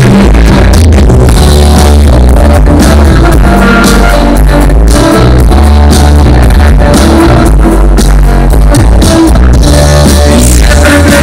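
Rock band playing live and very loud through the stage speakers, heard from the crowd: electric guitars, bass and drums.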